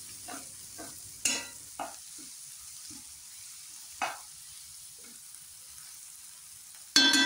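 A spatula stirring and scraping cluster beans and minced mutton through hot oil in a karahi, over a faint steady sizzle. A few short scraping strokes are heard, the strongest about a second in and about four seconds in, and there is a sharp metallic clank with a brief ring near the end.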